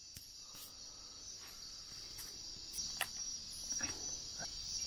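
Night insect chorus of a tropical rainforest: crickets trilling steadily in a high, continuous band. A few faint clicks and rustles break in now and then.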